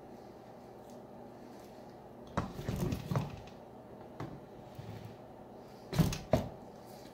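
Small metal parts clicking and knocking against the rear wheel hub of a 1986 Yamaha QT50 as the axle washer and nut are fitted by hand: a cluster of clicks about two and a half to three seconds in, and two sharper knocks, the loudest, about six seconds in.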